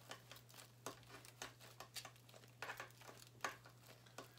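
Faint, irregular crinkling and clicking of hands pressing polymer clay onto an aluminum foil armature, over a low steady hum.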